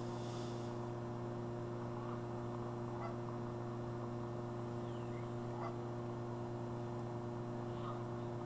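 A steady low hum runs throughout, with a few faint, scattered goose honks over it.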